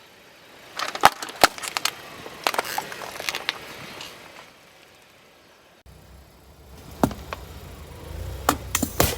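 Objects cracking and crunching under a car tyre in a series of separate sharp snaps. About six seconds in, a low rumble from the car sets in under further snaps.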